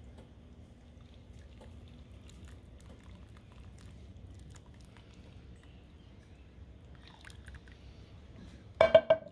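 Thick barbecue sauce being poured from a pan through a fine mesh sieve: faint pouring with a few small clicks. A voice breaks in loudly near the end.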